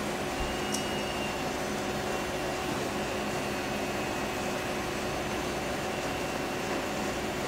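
Steady hum of a running desktop PC's cooling fans, with a faint high whine and one light click about a second in.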